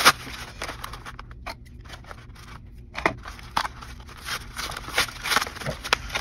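A trading-card pack being torn open by hand: irregular crinkling, rustling and sharp ripping snaps from the wrapper and the paper-backed blister packaging, with a quieter stretch a second or two in.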